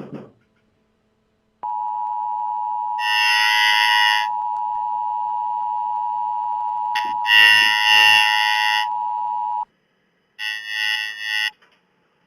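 Emergency Alert System alarm: the steady two-tone attention signal holds for about eight seconds, broken by three harsh, shrill buzzing data bursts, the last coming just after the tone cuts off.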